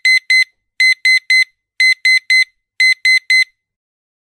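Digital alarm clock beeping: short high beeps in quick groups of three, about one group a second, stopping about three and a half seconds in.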